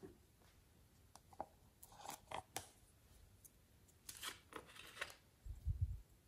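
Quiet clicks and scrapes of small plastic containers being handled, then a small glitter bottle being opened and shaken out over the slime, with a few dull low bumps near the end.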